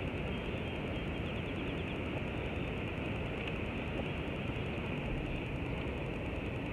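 Steady outdoor rushing noise of water spilling over a low dam spillway, with a low rumble; faint bird chirps about a second and a half in.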